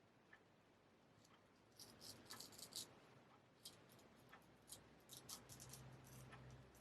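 Faint, short, crisp scraping strokes of a straight razor's blade, in quick clusters, with a steady low hum coming in about five seconds in.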